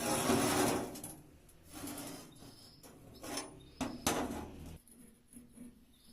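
Several scraping, rubbing strokes on a hard surface: a long loud one at the start, then shorter ones about two, three and four seconds in.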